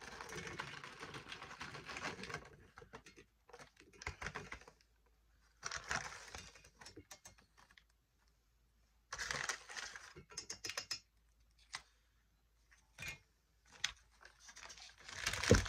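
Irregular bursts of rustling and clicking from ration packaging being handled, with silent gaps between them, and a sharp thump just before the end.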